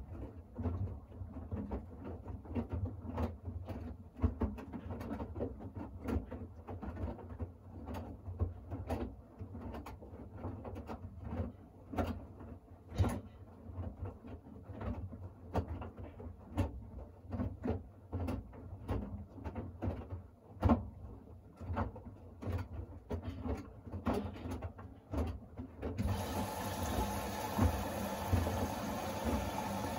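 Siemens iQ700 front-loading washing machine turning its drum during the load-adjust stage of a Shirts cycle: a low motor hum with irregular clicks and knocks from the tumbling load. About 26 s in it changes suddenly to a steadier, denser running noise.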